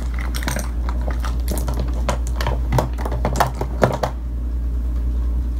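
Plastic makeup cases and products clicking and knocking together as a makeup collection is rummaged through, over a steady low hum; the clicks stop about four seconds in.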